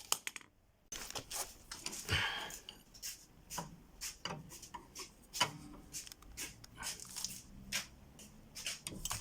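A wrench clicking and scraping on the wheel nuts as the lowered wheel is tightened: a run of irregular short clicks, a few to several a second.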